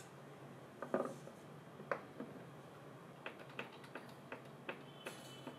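Plastic junction box lid clacking as it is set in place, then a run of small sharp clicks, about three a second, as a screwdriver turns the lid screws.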